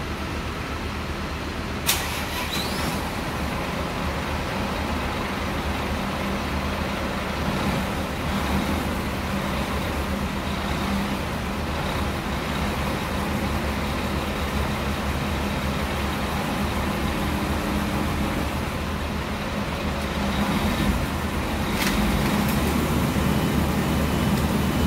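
Steady background rumble of vehicles and traffic, with a sharp click about two seconds in and another near the end.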